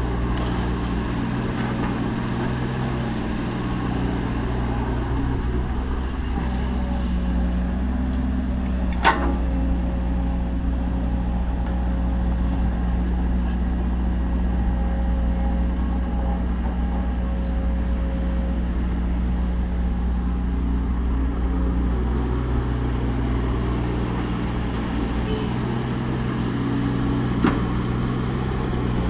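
Diesel engine of heavy construction machinery running steadily, with a sharp metallic knock about nine seconds in and another near the end.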